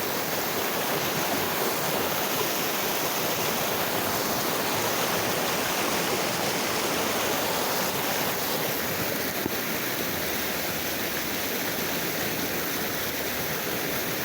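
Stream rushing steadily: a continuous, even rush of running water.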